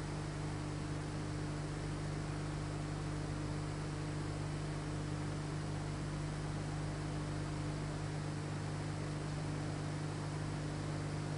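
Steady hiss with a low, constant mains hum, and no separate sounds on top: the noise floor of an old film recording. The knife work on the clog is not heard.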